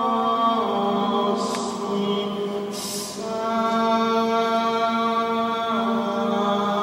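Vocal chant in a stone-vaulted church: long held sung notes that change pitch in slow steps, blending in the reverberation, with two short breathy hisses between phrases.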